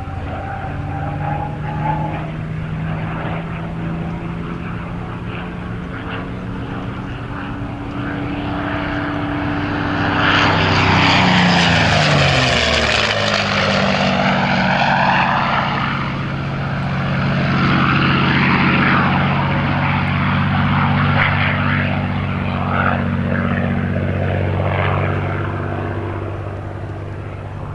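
P-51D Mustang's Packard Merlin V12 engine in a low pass, a steady propeller drone that swells to its loudest about eleven seconds in. The pitch falls sharply as the aircraft goes by, and the engine then stays loud and steady as it flies on.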